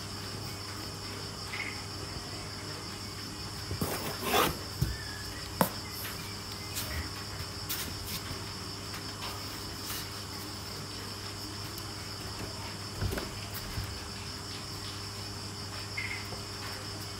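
Steady high chirring of night insects with a low hum beneath. A few short knocks and scuffs come about four to six seconds in and again around thirteen seconds.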